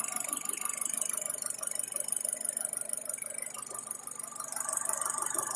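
Mitsubishi 4G94 engine idling steadily, with the knock at the intake side gone quiet.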